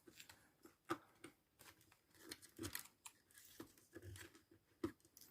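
Faint, scattered small clicks and rustles of hands handling thin laptop wires and plastic parts inside the open laptop base.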